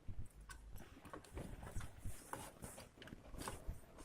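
Faint handling noise: scattered small clicks and rustles of hands working a CPU fan cable and its plug against the motherboard.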